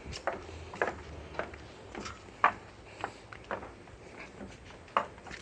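Footsteps in heeled shoes: sharp clicks about twice a second, uneven in loudness, with louder strikes about two and a half and five seconds in.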